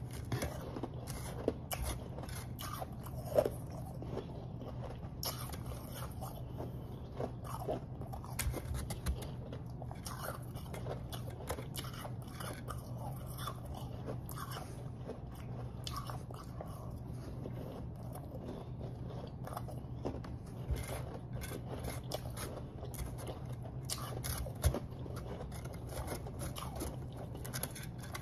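Refrozen powdery snow ice being bitten and chewed close to a lapel microphone: a continual run of crisp, irregular crunches. A steady low hum sits underneath.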